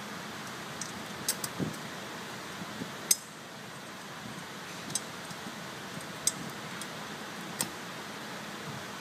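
Light metallic clicks and clinks as bolts are threaded by hand through the turbo outlet pipe and its gasket into the turbine housing, with the threads catching on the gasket. The clicks are irregular, about half a dozen, the sharpest about three seconds in, over a steady background hiss.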